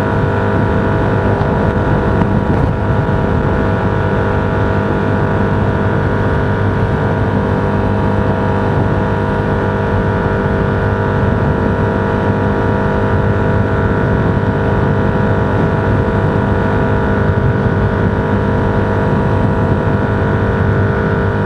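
Steady drone of a vehicle cruising at constant speed, heard from inside: engine hum and road noise with several unchanging tones, no rise or fall in pitch.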